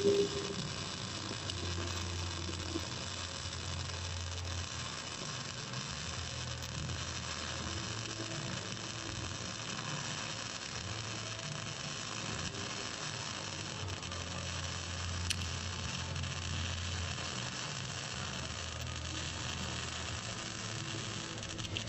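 Electric arc welding: a steady crackling hiss of the arc as a plate is welded over a crack, with a low hum that comes and goes.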